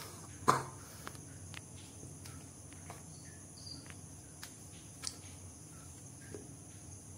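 Small handling clicks and taps, one sharper click about half a second in and a lighter one about five seconds in, over a steady high-pitched whine and a low hum.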